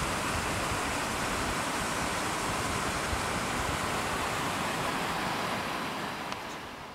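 Steady rushing wind, with occasional low buffeting on the microphone; it fades away near the end.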